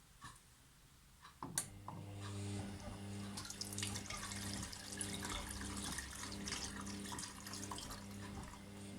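Gorenje washing machine's water inlet valve opening with a click about a second and a half in, then water running into the drum over a steady electrical hum.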